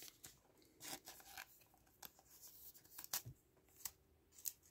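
Faint, scattered clicks and rustles of trading cards being handled and flipped through by hand.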